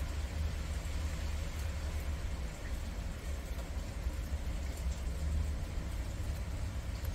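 A steady low hum under a faint hiss, with a few soft, scattered clicks from prairie dogs gnawing on sugarcane.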